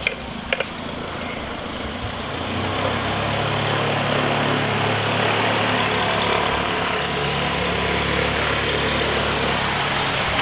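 An engine running steadily at idle, its hum growing louder about two and a half seconds in. Two sharp clicks come near the start.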